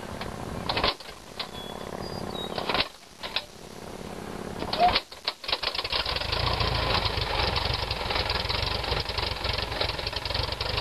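Piper Cub's air-cooled flat-four engine being started by hand-propping: a few sharp knocks while the propeller is pulled through, then the engine catches about six seconds in and settles into a steady, rapid-firing idle.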